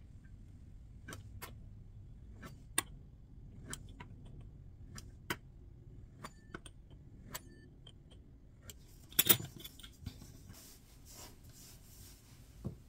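Metal fluted pastry wheel clicking and rattling on a wooden board as it cuts strips of dough, about one sharp click a second. There is a louder clatter about nine seconds in as the cutter is put down on the board.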